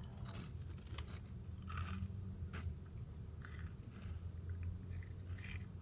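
A person crunching and chewing prawn crackers: about half a dozen crisp crunches spread over the few seconds, over a low steady hum.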